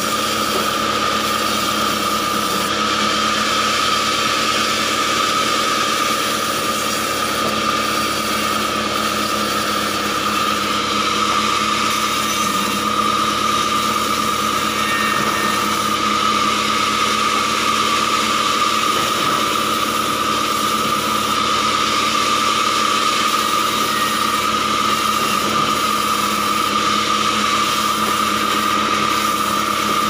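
Sawmill band saw running steadily with a constant high whine, its blade cutting through acacia logs and slabs.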